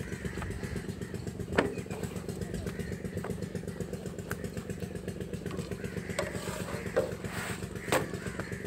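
A small engine runs steadily in the background, a low even drone, while a few sharp knocks sound about one and a half seconds in and twice near the end, from the work of laying and turning large flatbreads on a big iron griddle.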